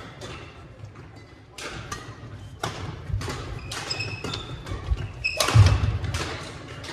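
Badminton doubles rally on a hardwood gym floor: sharp racket strikes on the shuttlecock, short sneaker squeaks and footfalls as the players move, and a loud thump a little before the end.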